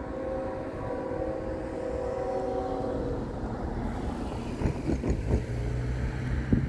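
Distant horn of an approaching freight train's lead locomotive, a GE ES44AC, sounding one long chord of several steady notes that stops about three seconds in. After it comes a low steady rumble from the train's engines, with gusts of wind on the microphone.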